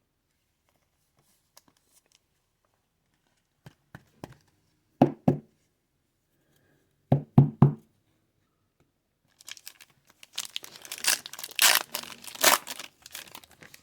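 Two sharp knocks about five seconds in and three more about two seconds later, then a foil trading-card pack wrapper being torn open and crinkled for about four seconds.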